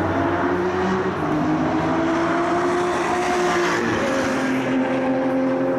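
High-performance car engine accelerating hard, its pitch climbing through one gear, dropping sharply on an upshift about four seconds in, then climbing again.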